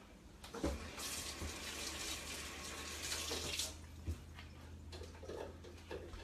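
Kitchen sink faucet running for a few seconds, water splashing into the sink, then turned off, with a couple of light knocks.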